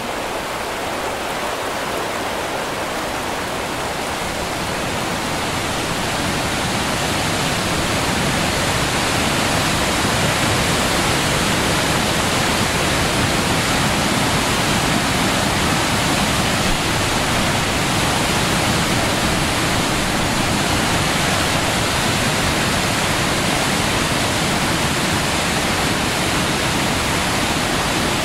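Steady rushing roar of falling water from Webster's Falls, growing louder over the first several seconds and then holding steady.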